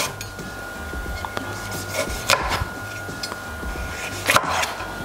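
Kitchen prep on a wooden board: a utensil scraping and rubbing, with sharp knocks near the start, about two seconds in and about four seconds in.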